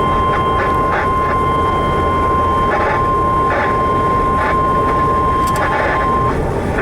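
NOAA Weather Radio single-pitch 1050 Hz warning alert tone, held steady and cutting off about six seconds in, received through heavy radio static with occasional crackles.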